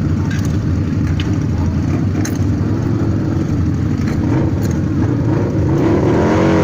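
Several Harley-Davidson V-twin motorcycle engines running together, steady and loud, with a wavering pitched sound rising near the end.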